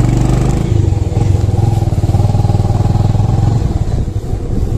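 Motorcycle engine running on the move with a steady low, pulsing note. The note falls away near the end as the bike eases off.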